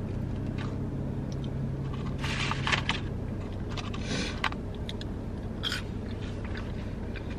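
Two short bursts of rustling and scraping, about two and four seconds in, from handling a hot sauce packet and fries in a paper carton. A steady low hum runs underneath in the car cabin.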